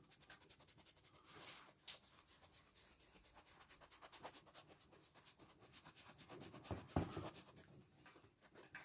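Faint rubbing of a cloth working black shoe polish into an old bicycle seat, in short repeated strokes.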